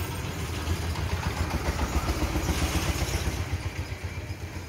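A motor running steadily with a low, fast-pulsing hum.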